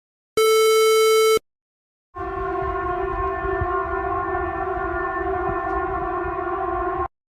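An emergency alert's buzzy electronic tone sounds once for about a second. After a short gap, a steady siren holds one flat, multi-tone chord over a low rumble for about five seconds, then cuts off.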